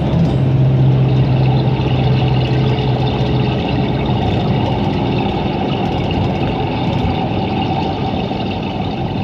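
Bus engine and road noise heard from inside the moving bus: a steady low engine hum over tyre rumble, the hum easing off about three and a half seconds in.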